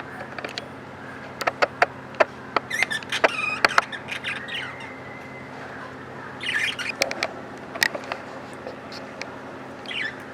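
Small pet parrots (budgies) chirping and squawking: scattered sharp chirps with short bursts of chatter about three seconds in and again past halfway, over a low steady hum.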